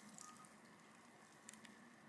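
Very faint patter of beaten egg pouring through a wire mesh sieve into a glass bowl, with two light clicks about a second and a half in.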